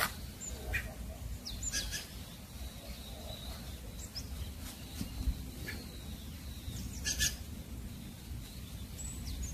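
Low outdoor rumble with scattered short, high chirps or squeaks. A few brief rustles, the plainest about two seconds in and a double one about seven seconds in, come from a cat pawing through a mesh net of drying green beans.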